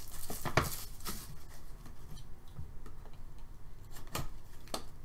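Small cardboard puck boxes being handled, with soft rubbing and a few light clicks and knocks, one about half a second in and two more near the end as a utility knife is brought to a box's seal.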